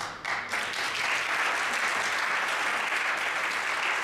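Audience applauding, starting abruptly and then holding steady.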